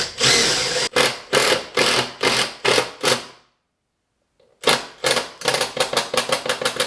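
Power drill driving a long screw through the panel into a wooden wall stud, run in short trigger bursts about two or three a second, then, after a brief gap, in quicker bursts about five a second.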